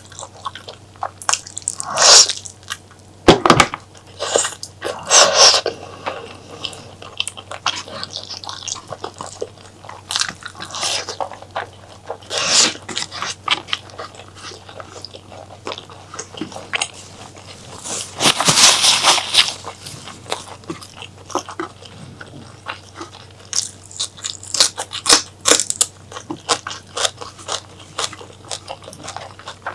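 Close-miked chewing and biting of spicy mutton curry with honeycomb tripe: wet, crunchy mouth sounds, irregular small clicks and a few louder bites, with a longer, louder burst about two-thirds of the way through.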